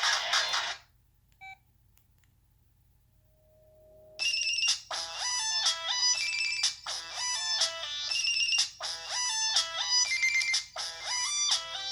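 Samsung Intensity III phone playing its preloaded ringtones. One tune cuts off under a second in and a short beep follows. After a pause of a few seconds, a new electronic ringtone melody of quick, evenly paced notes begins.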